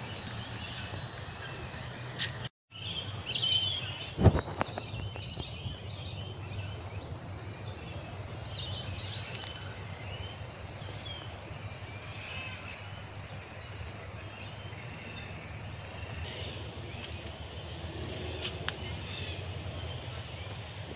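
Outdoor ambience of small birds chirping on and off over a steady low background hum, with one sharp knock about four seconds in.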